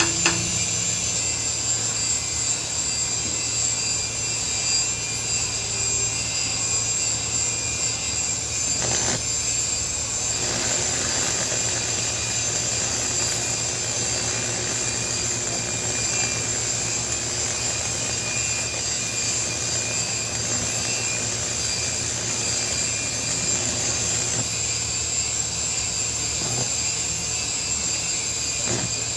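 Electric arc welding on a heavy loader bucket: the steady hiss of the welding arc, with a brief interruption about nine seconds in.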